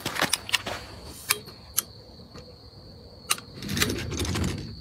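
Light metallic clicks and knocks as camping gear, a telescoping metal stand, is handled and set up. Near the end comes a longer, duller scraping knock as a large folding panel or table is moved.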